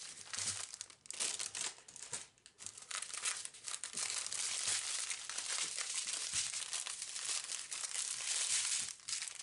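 Plastic packaging crinkling as a bag of diamond-painting drill packets is handled and the strips of small plastic drill bags are unrolled and spread out. The crackling comes in scattered bits at first, then runs almost without a break from about four seconds in.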